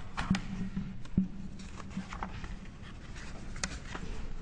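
Room tone in a pause between spoken sentences: a low steady hum with scattered small clicks and rustles.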